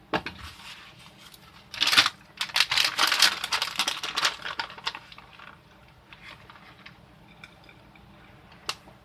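Crinkling and rustling from cheese packaging as cheese is sprinkled onto a taco. It is densest from about two seconds in to about five seconds, then thins to a few scattered small ticks.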